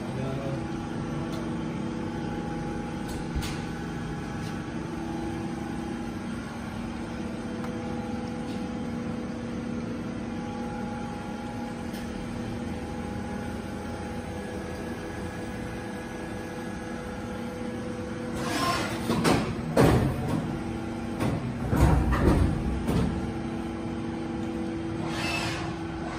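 Kunzmann BA 600 CNC milling machine running: a steady machine hum with several held tones that change pitch now and then. Between about 18 and 23 seconds, louder rushing noises rise over it, several times.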